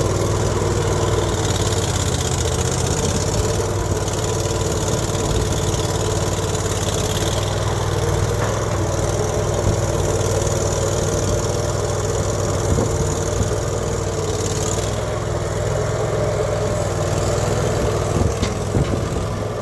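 Melrose 500 skid steer's newly adapted replacement engine idling steadily, with a few light knocks near the end.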